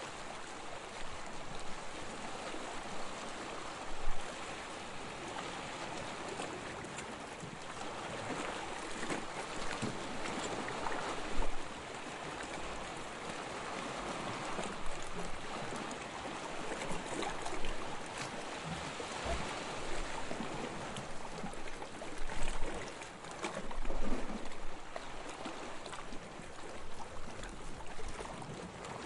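Sea water lapping and washing steadily, with several louder surges.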